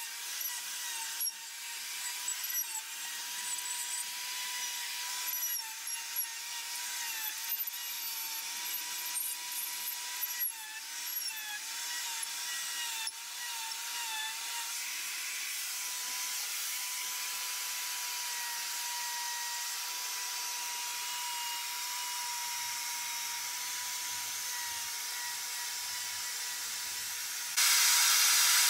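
Electric die grinder with a 1/4-inch Saburrtooth flame burr carving detail into wood: a steady high whine that dips briefly in pitch each time the burr bites, with scattered light ticks in the first half. The sound steps up suddenly in loudness near the end.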